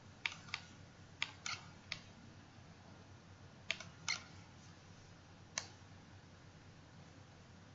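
Computer mouse clicking: about eight sharp, short clicks, some in quick pairs, spread over the first six seconds, over a faint steady room hum.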